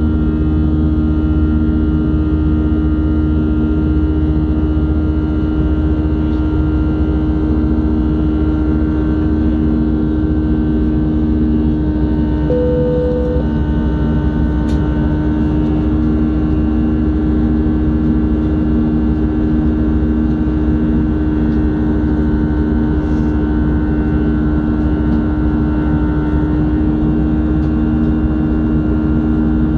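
Cabin noise of an Airbus A320-211 in flight, heard from a window seat beside its CFM56-5A1 turbofan: a steady engine drone with a low rumble and a constant hum. A brief tone sounds about twelve seconds in.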